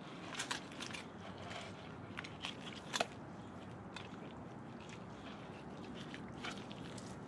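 Knife cutting through the belly flesh of a striped bass on a wooden board: faint, scattered small clicks, with one sharper click about three seconds in.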